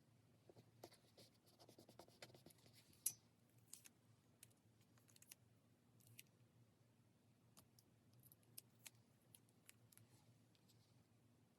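Faint, scattered clicks and light scratching of pen-and-paper work on a diary page, with one sharper click about three seconds in.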